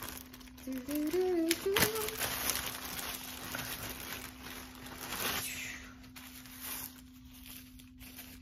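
Clear plastic poly bag crinkling and rustling as it is pulled open and handled, with sharp crackles about two seconds in and again around five seconds, then lighter rustling.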